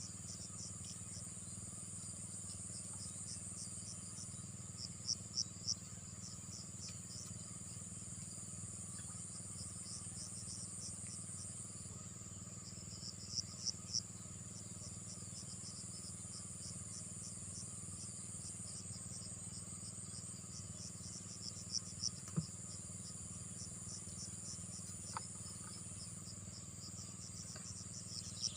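Crickets or similar insects calling: a steady high trill with rapid repeated chirps, and a louder burst of three chirps about every eight seconds, over a low steady hum.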